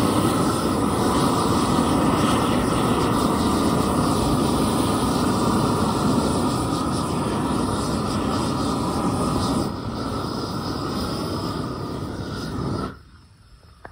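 Hose-fed propane torch burning with a steady rushing noise as its flame heats thin 18-gauge mild steel. It eases slightly about ten seconds in, then stops abruptly near the end.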